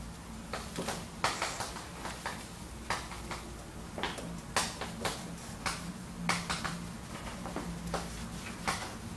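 Chalk writing on a chalkboard: an irregular run of short taps and scrapes as characters are stroked out, over a low steady hum.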